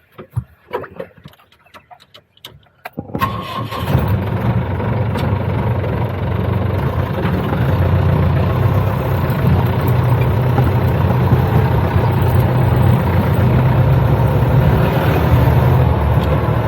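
A few light clicks and knocks, then about three seconds in a safari jeep's engine starts and keeps running steadily with a low rumble.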